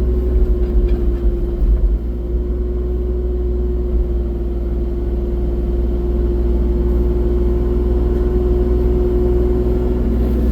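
Excavator's diesel engine running steadily at working speed, with a steady whine over a low rumble and a few knocks in the first two seconds.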